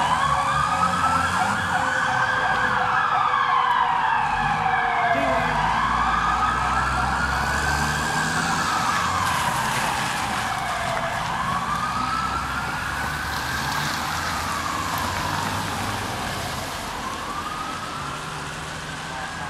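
Fire tanker truck's siren on a slow wail, its pitch rising and falling about once every five and a half seconds, under a steady higher tone, with diesel engine rumble beneath. It grows fainter as the truck drives off.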